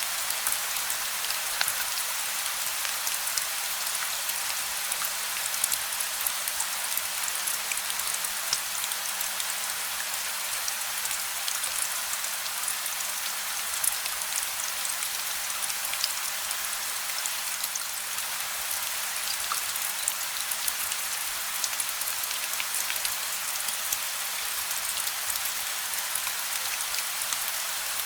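Steady gentle rain falling, a continuous hiss of many small raindrop patters with no thunder.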